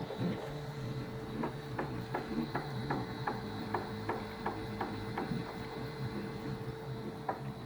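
Home-built micro 3D printer made from e-waste running a print: its stepper motors hum steadily under a run of sharp ticks, about three a second, that thin out for a couple of seconds before the end.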